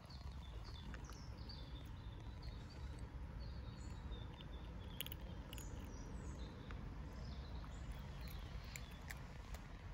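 Small birds chirping in short, quick calls over a steady low outdoor rumble, with a few light clicks mixed in.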